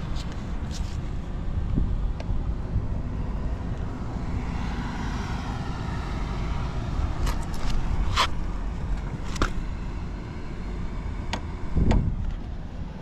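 Honda Ape 50's single-cylinder four-stroke engine idling through a Racing Service ZERO aftermarket muffler, a steady low exhaust rumble, with a few sharp clicks or knocks about eight, nine and twelve seconds in.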